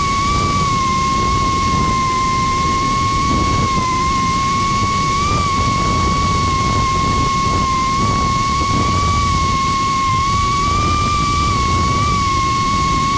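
FPV Cycle Cinesplore quadcopter's brushless motors and propellers whining at a near-steady pitch as it cruises at even throttle, heard from its onboard camera, over a low rush of air.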